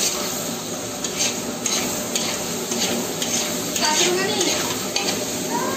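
A spatula stirring and scraping a spiced tomato masala as it fries in a large metal kadai: a steady sizzle with irregular scrapes of the spatula against the pan.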